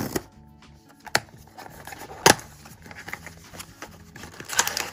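Cardboard blind box being opened by hand: a paper tear strip ripped off, the top flaps pulled open, and the foil bag inside rustling, with a sharp snap about two seconds in.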